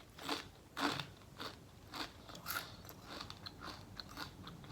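Close-miked chewing of crunchy food, with a crisp crunch about twice a second.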